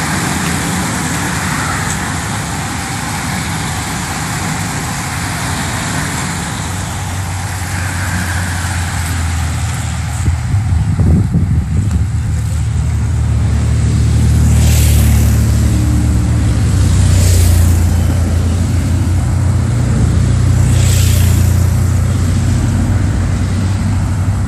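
A road-race peloton hissing past, then the race's following cars and motorbikes driving by one after another with a low engine rumble. Three vehicles pass close in the second half, each swelling and fading.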